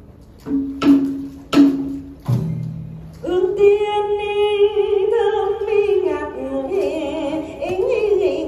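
Traditional Vietnamese water-puppet theatre music: a few sharp percussion strikes, then from about three seconds in a singer holds long, wavering notes over pitched instruments.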